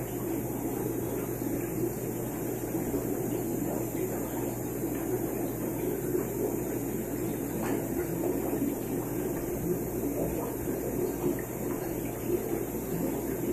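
Steady bubbling of an aquarium air-lift, with air streaming out of a PVC elbow, over the low, even hum of the air pump.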